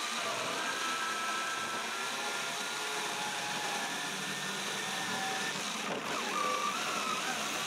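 Skil corded jigsaw running steadily as its reciprocating blade cuts through old plywood, with a faint motor whine over the blade's rasp that dips briefly about six seconds in.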